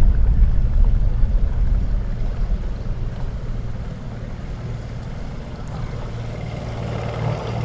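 A low, steady engine hum under rumbling wind noise. It is loudest in the first couple of seconds and then eases off.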